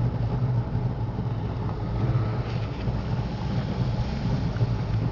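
Watercraft engine running steadily as a low drone, with wind and water noise over it.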